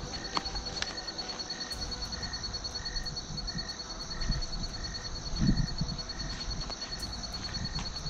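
Night chorus of crickets and other insects: a steady high pulsing trill with a lower chirp repeating about every half second. A soft low thump sounds a little past the middle.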